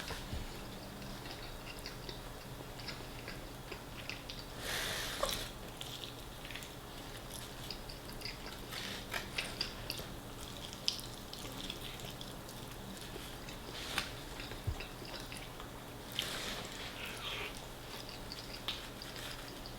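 Close-up eating sounds of a person biting and chewing fried chicken: scattered sharp wet mouth clicks and smacks, with a couple of longer, louder noisy bursts about five seconds in and again around sixteen seconds.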